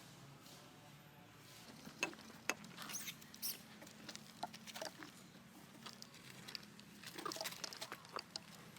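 Light scrabbling taps with a few brief high squeaks from a small animal, starting about two seconds in.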